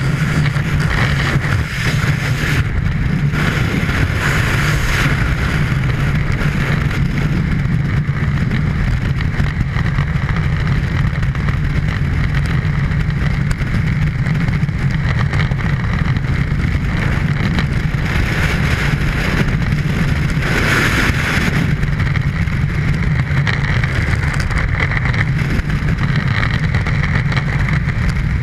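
Loud, steady rush of freefall wind buffeting the camera's microphone, a low rumble under a hiss that swells now and then.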